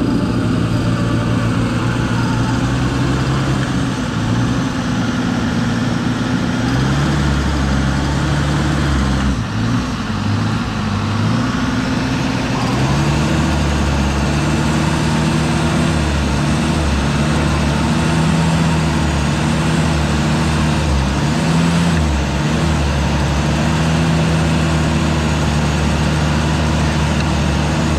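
Off-road 4x4's engine running steadily under load as the vehicle is winched up through deep mud, its pitch stepping up about seven seconds in and again around thirteen seconds, then wavering.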